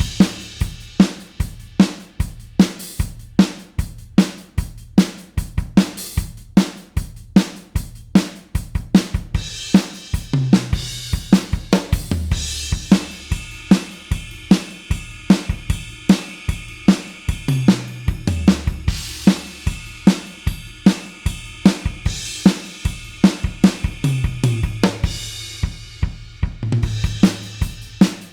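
Rock drum kit playing a steady beat on kick, snare and hi-hat, with cymbal crashes ringing out in places. Every few seconds there is a low fill of hits that step down in pitch.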